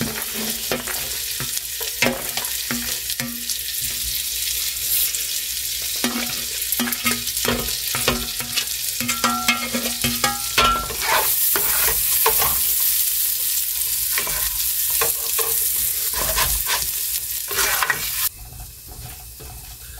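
Diced onions and jalapeños frying in bacon grease in a nonstick pan, with a spoon stirring and scraping against the pan in short clicks. The sizzle gets louder about halfway through and drops off sharply near the end.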